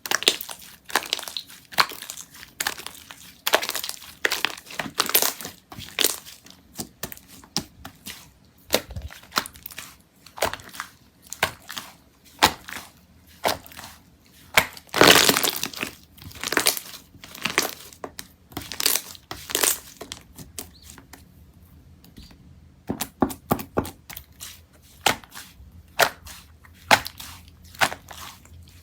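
Slime being squeezed and pressed by hand, giving a dense run of crackling clicks and pops. The crackling is loudest about halfway through and thins out briefly a little later.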